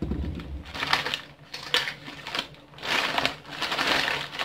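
Plastic bag rustling and crinkling in several bursts as items are rummaged through and pulled out, with a dull bump at the start.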